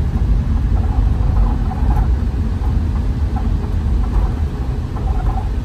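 Wind buffeting a phone microphone: a loud, choppy low rumble with no clear pitch.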